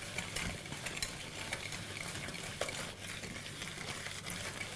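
Wire whisk beating butter and sugar by hand in a glass bowl: a steady scratchy swishing through the thick mixture, with light clicks of the wires against the glass. This is the creaming stage, working the butter, white sugar and brown sugar until creamy.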